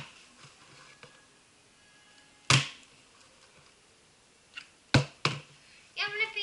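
Plastic water bottle flipped and landing on a laminate floor: one sharp thud about two and a half seconds in, then two more in quick succession about five seconds in as it lands and tips over. A child's voice starts near the end.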